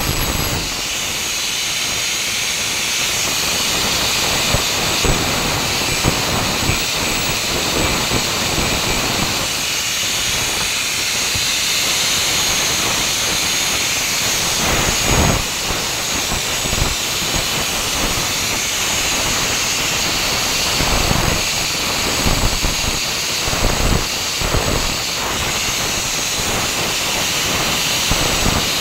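Angle grinder grinding steel square tubing: a steady high hiss and whine, with brief louder bumps here and there as the disc bites the metal.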